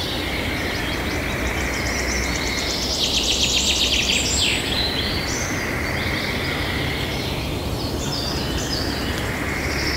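Parrots chirping, with a fast, high trill of calls around the middle, over a steady background noise.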